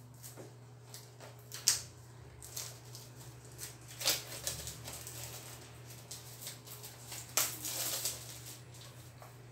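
Plastic wrapping being torn and peeled off a paperback book: irregular crinkling and rustling, with three louder crackles about two, four and seven and a half seconds in.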